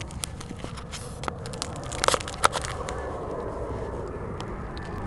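Close handling noise from a head-mounted camera being moved about: a run of clicks and knocks, with two louder knocks about half a second apart about two seconds in, over a steady low rumble.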